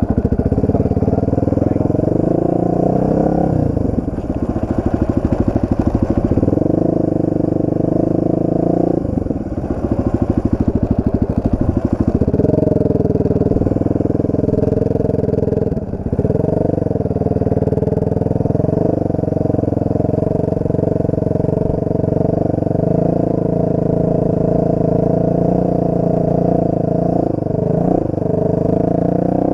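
Dirt bike engine running hard while being ridden, its pitch holding fairly steady and dipping briefly four times as the throttle is eased.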